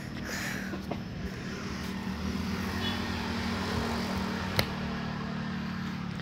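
Steady low hum of a motor vehicle engine running nearby, swelling a little and then easing off. One sharp tap about four and a half seconds in.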